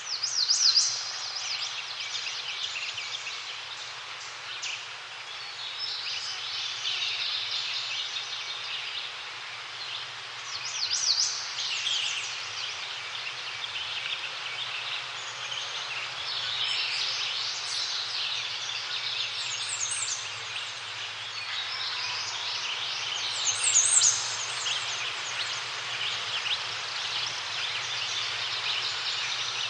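Songbirds singing in short high phrases every few seconds, over a steady background hiss.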